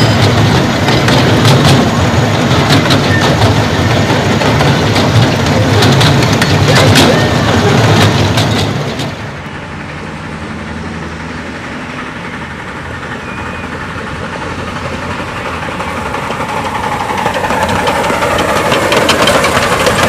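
Miniature train heard from on board: a loud, steady rumble of the locomotive and cars with rapid clicks of the wheels over the rail joints. The sound cuts off abruptly about nine seconds in, and a quieter rumble and clatter of the miniature train coming along the track grows steadily louder as it draws near.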